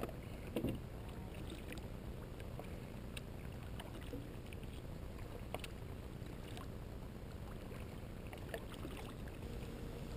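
Kayak paddle strokes on lake water: small splashes and drips with scattered light ticks, over a steady low rumble.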